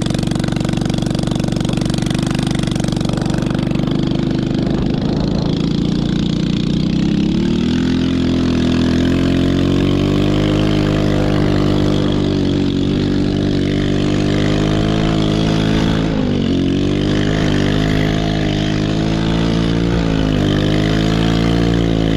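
Chinese 110cc ATV's small single-cylinder four-stroke engine running under throttle. The revs climb about eight seconds in, then rise and fall as the quad is ridden, dipping briefly past the middle.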